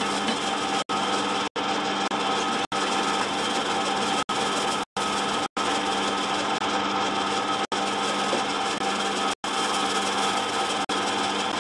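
Pillar drill running steadily, its bit cutting a pilot hole through a metal tube for a cable exit. The sound is broken by several very short dropouts.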